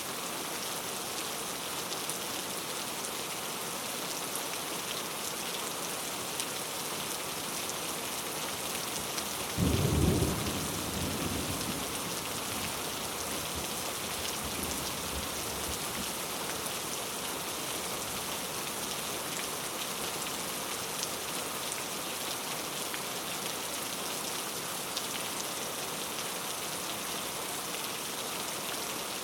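Steady rainforest rain. About ten seconds in, a sudden loud clap of thunder, whose low rumble fades away over the next few seconds.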